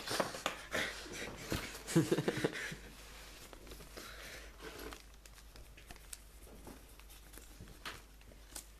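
Toilet paper rustling and crinkling as it is handled, with excess paint wiped off a brush onto it to ready the brush for drybrushing. It is loudest in the first three seconds, then fades to faint scattered rustles.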